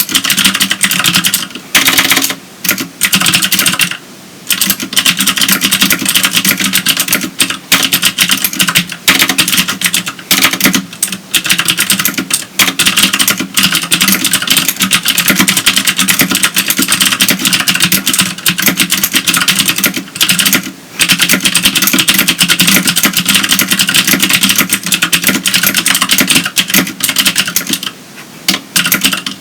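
Fast, continuous typing on a CM Storm QuickFire Stealth keyboard with clicky Cherry MX Green switches: a dense stream of key clicks, broken by a few short pauses.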